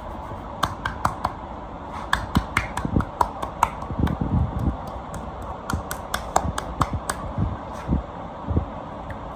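Hands massaging a person's back: many sharp, irregular clicks and a few soft, dull thuds, busiest between about two and five seconds in.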